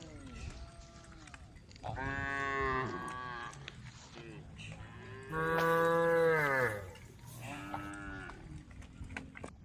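Cows mooing: three main drawn-out moos, the loudest and longest about halfway through, with fainter calls from other animals in between.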